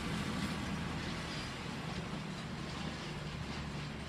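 Class 220 Voyager diesel multiple unit pulling away. Its underfloor diesel engines make a steady low drone that eases slightly as the train recedes.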